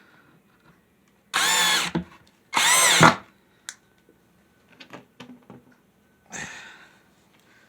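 Power drill driving a screw into the wood in two short bursts, its motor whine rising and falling with each trigger pull, then a shorter, weaker burst near the end, with small clicks between.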